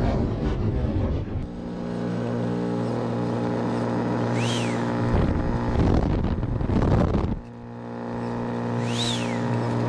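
Electric fan motors of a radio-controlled hovercraft running with a steady hum. About halfway through, a couple of seconds of louder rushing noise break in and cut off suddenly, and then the steady hum returns. Three short high chirps, each rising and then falling in pitch, sound over it.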